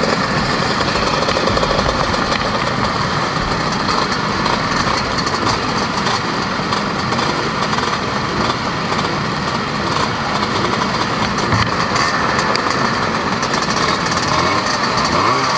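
A crowd of classic two-stroke Vespa scooters idling and running together, a steady mixed engine sound from many machines at once.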